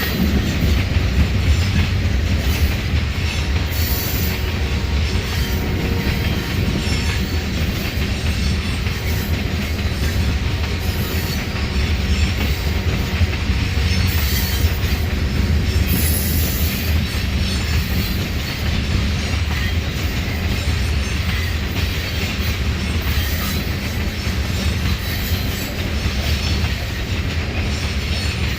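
Freight train's cars rolling past on the rails, a loud, steady rumble throughout.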